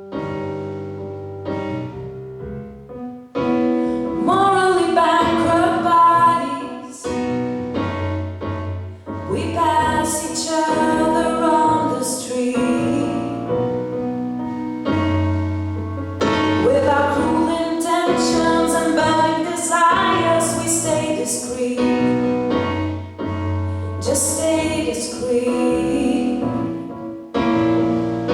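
A woman singing a slow pop ballad with solo piano accompaniment; the voice comes in about three seconds in over sustained piano chords.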